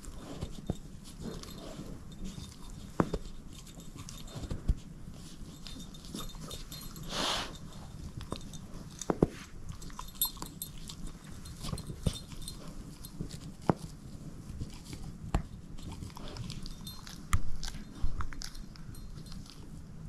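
A dog chewing and gnawing on a plush and rope stocking toy: irregular sharp clicks and tugs, a brief hissing noise about seven seconds in, and a louder scuffle near the end.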